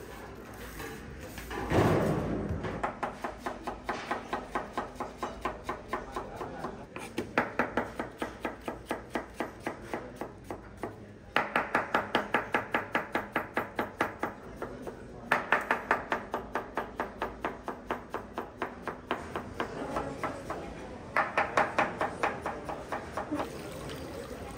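Chef's knife dicing onion on a plastic cutting board: rapid, even chopping strokes about four or five a second, in runs of a few seconds with short pauses between. A louder thump comes about two seconds in.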